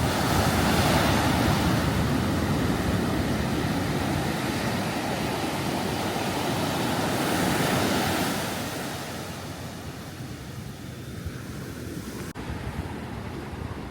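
Ocean surf: waves breaking and washing up a beach, a broad rushing that swells loud and then eases off about two-thirds of the way through.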